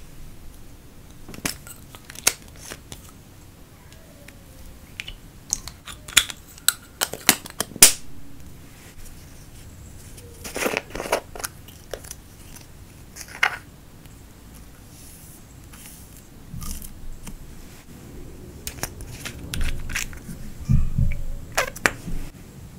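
Sharp plastic clicks and taps from small makeup containers and caps being opened and handled, scattered irregularly with a quick cluster about ten seconds in. Near the end, soft low squishing and bumps as crumbled orange makeup is pressed into the clear slime.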